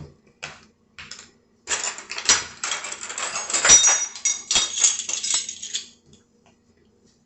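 Metal spoons and kitchen utensils clinking and jangling against dishes: a few light clicks, then a busy clatter from about two to six seconds in.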